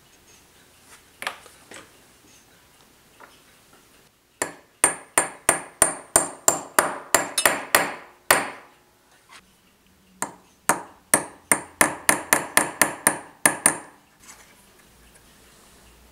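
Small hammer tapping the punch of a watchmaker's staking set, driving a brass clock wheel onto its pinion arbor. Two runs of sharp, ringing metallic taps, about fifteen blows each and quickening, with a pause of about two seconds between them.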